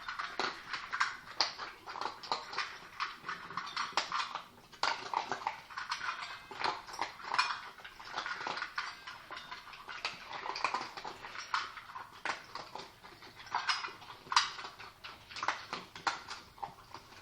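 Jack Russell terriers eating from their food bowls: a rapid, uneven run of small clicks and clinks from chewing and licking against the bowl, with a short lull about five seconds in.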